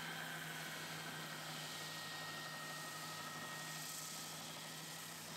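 Triton oscillating belt sander running steadily, its motor humming under the hiss of a wooden board being sanded against the belt.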